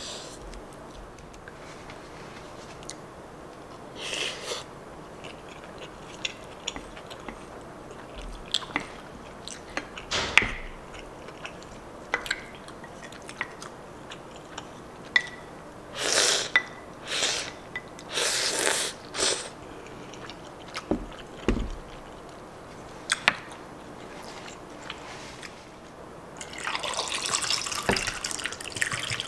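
A wooden spoon scraping and tapping a ceramic plate, with the mouth sounds of eating in between. Near the end, liquid is poured from a plastic pitcher into a glass for a few seconds.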